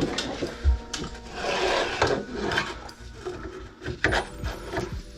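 Rubbing and scraping handling noises with scattered sharp knocks and clicks, and a longer stretch of scraping about two seconds in.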